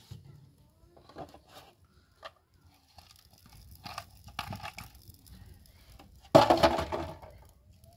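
Dry straw and twigs crackling and rustling as they are fed by hand into a freshly lit fire, with a sudden loud burst of sound about six seconds in.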